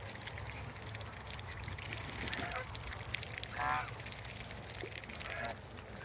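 Domestic geese honking a few times: a short call about two seconds in, a louder honk in the middle, and another short one near the end.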